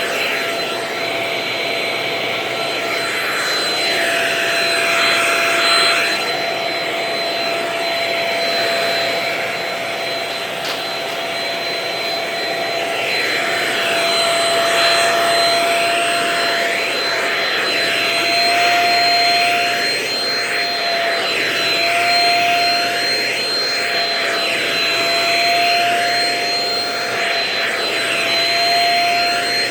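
Vacuum cleaner running with a steady whine, the rush of air shifting in repeated strokes every few seconds as it is worked over couch upholstery.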